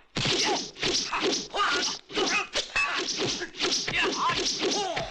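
Fight soundtrack from a Hong Kong kung fu film: a rapid, unbroken run of hit and swish effects mixed with the fighters' shouts and grunts.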